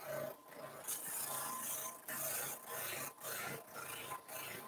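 Boxwood screwdriver handle pressed against a spinning cloth buffing wheel on a wood lathe, giving a rubbing hiss that comes and goes about every half second as the handle is worked against the wheel, over a faint steady hum from the lathe. It is the first polishing stage, with a light compound on the wheel.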